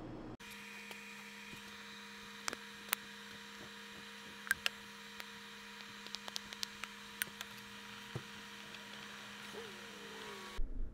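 Steady low electrical hum under scattered light clicks and taps of plastic bottles and a wooden stirring stick against a plastic mixing cup as two-part epoxy is poured and mixed, with a few brief squeaks of the stick in the cup near the end.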